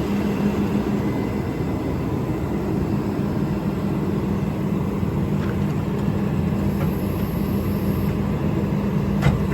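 An engine running steadily at a constant speed, with a steady low hum and one short click near the end.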